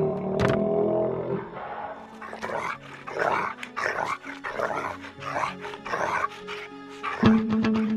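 A monster snarling and growling in a quick series of short, rasping bursts over a low music drone, with a steady music note coming in near the end.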